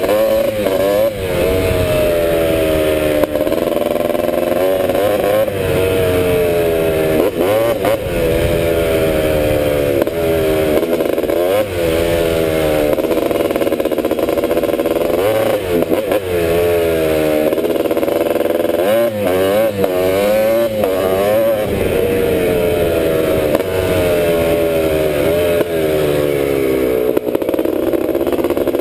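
1986 Honda ATC250R's two-stroke single-cylinder engine being ridden hard, its pitch climbing and dropping over and over as the throttle is opened and let off every few seconds.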